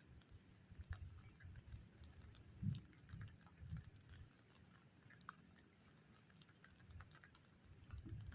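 Near silence, with a few faint low bumps and scattered soft clicks.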